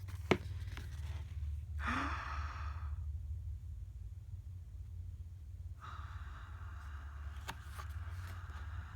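A person sighs, breathy, about two seconds in, while photobook pages are handled with a few light paper clicks. Near the end comes a longer steady hiss, all over a steady low hum.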